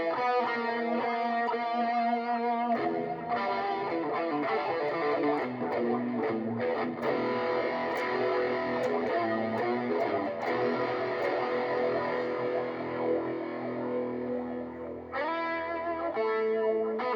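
Electric guitar played through an overdrive pedal and a delay pedal. Clear ringing notes give way about three seconds in to denser, lower, more driven playing, and separate higher notes return near the end.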